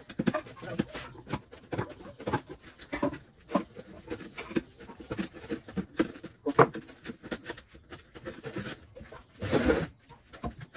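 Irregular clicks, taps and knocks of hand work on a window-screen frame at a worktable, with one louder, brief scraping burst about nine and a half seconds in.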